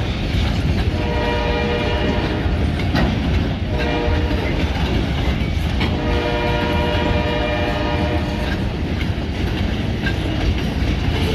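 Freight train cars rolling past, wheels clacking over the rail joints, with a long pitched tone sounding twice for about two and a half seconds each.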